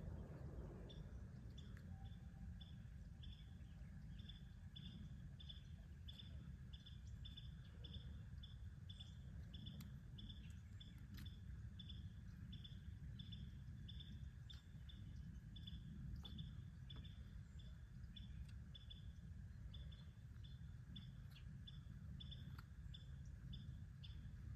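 Faint, even high-pitched chirping, about two chirps a second, over a low outdoor rumble, with a few faint clicks here and there.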